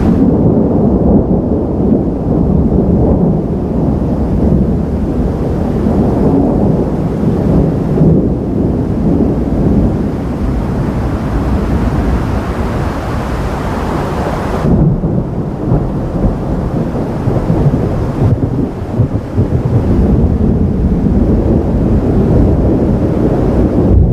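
Thunder rumbling long and deep through a thunderstorm, loud and unbroken, its upper edge falling away abruptly about fifteen seconds in while the low rumble carries on.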